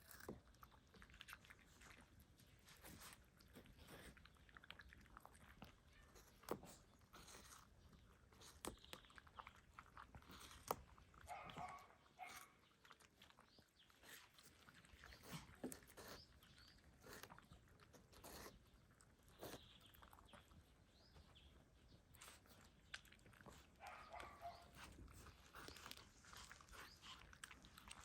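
Pets eating watermelon: faint, irregular wet chewing, smacking and crunching of the fruit, with two brief higher-pitched sounds, one about halfway through and one near the end.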